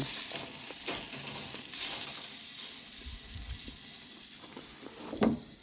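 Grouse meat frying in rendered pork fat, a steady sizzle. A short louder sound comes near the end.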